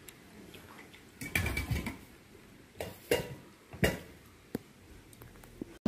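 Scattered light clinks and knocks of tableware: a short cluster about a second and a half in, then a few single taps over the next few seconds.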